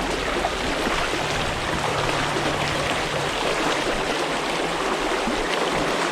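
Small creek flowing over rocks: a steady rush of running water.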